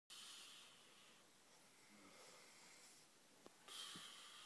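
A sleeping person snoring faintly: a breathy snore at the start lasting about a second, and a louder one beginning near the end, with a small click in between.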